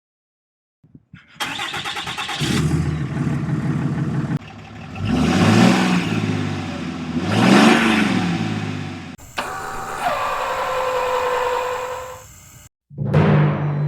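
Engine starting and running, revving up and down twice, in several abruptly cut segments.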